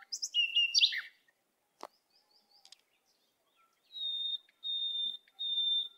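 Birds chirping: a few quick high chirps and slides near the start, then a steady high whistled note repeated in short phrases, about two a second, from about four seconds in.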